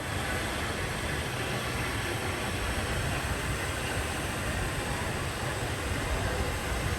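Steady rushing wind noise on the microphone during an open chairlift ride, with an uneven low flutter.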